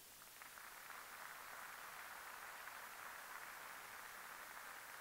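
Faint, steady hiss that comes up about a third of a second in and then holds.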